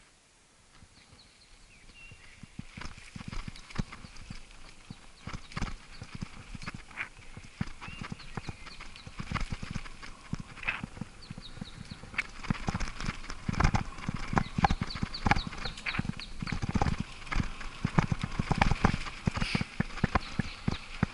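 Bicycle rattling and knocking as it is ridden over a bumpy dirt-and-gravel forest trail. The knocks are irregular, start faint and grow louder and busier as the ride picks up speed.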